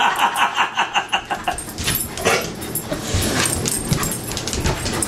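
A dog whining in quick pulses for the first second or so, then dogs' claws clicking and scrabbling on a hardwood floor as they pounce after a laser dot.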